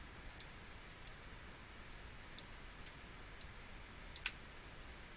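Faint, irregular clicks of a computer mouse, with one clearly louder click a little after four seconds in, over a low steady hiss.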